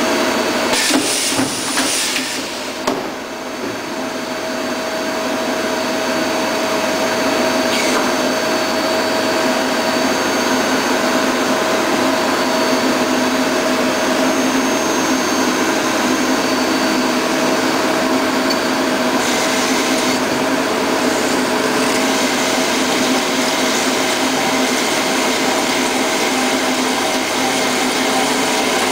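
Mazak Integrex 200SY CNC turning and milling centre running: a steady whirring machine hum with several fixed whining tones. There are a few knocks and rattles in the first few seconds.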